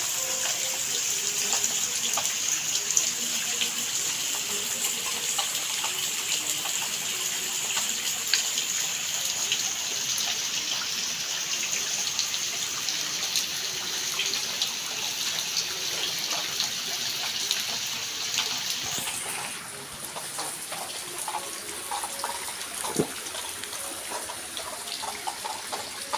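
Steady rushing noise of running water, a hiss that shifts and drops in level about nineteen seconds in.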